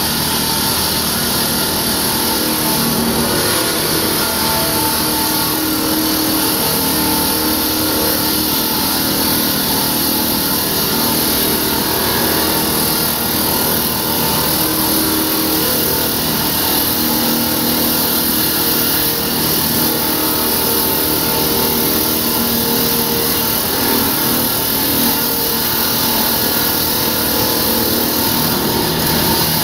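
Diamond-blade concrete saw running steadily as it cuts through concrete: a loud, even engine sound under a strong high hiss.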